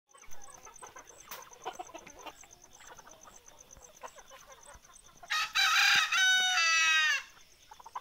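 A rooster crows once, loudly, about five seconds in; the crow ends in a long, falling note. Hens cluck softly and scratch around it before and after.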